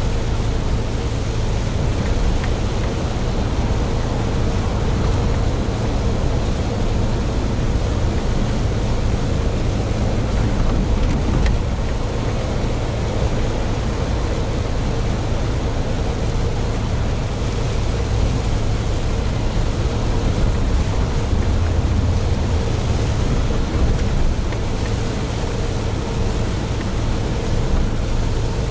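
Mitsubishi Fuso heavy truck cruising on a wet expressway: a steady low engine drone under constant road noise and tyre hiss from the rain-soaked road, with a faint steady whine held throughout.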